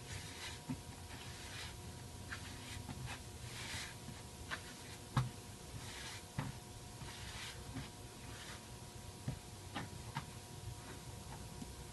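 Bread dough being kneaded by hand on a floured cutting mat: irregular soft thumps and knocks as the dough is pushed down and turned, with a sharper knock about five seconds in. A faint steady hum runs underneath.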